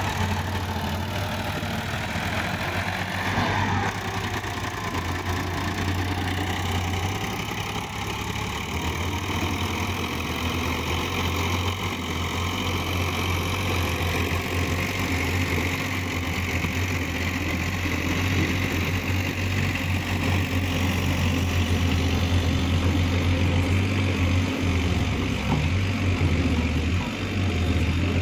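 Diesel engines running: a Sonalika DI 745 tractor pulling a fully loaded trolley away through soft mud, and a Kato excavator running close by. The low steady hum holds level as the tractor drives off, with some rising and falling pitch in the first few seconds.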